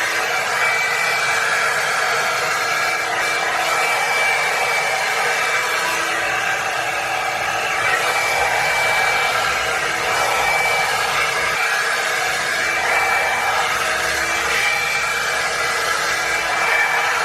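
Revlon One-Step hot-air brush dryer running steadily on its low setting: a constant rush of blown air with a thin, steady fan whine through it.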